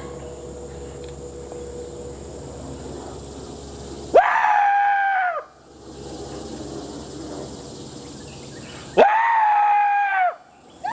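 Two long blasts of a demolition signal horn, each a little over a second, about five seconds apart, holding a steady pitch after a sharp start.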